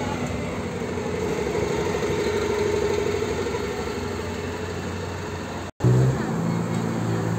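A Volvo double-decker bus's diesel engine running as the bus drives off past the camera, loudest about two to three seconds in and then easing away. After an abrupt cut near the end, another double-decker bus's engine is heard with a lower, steadier note.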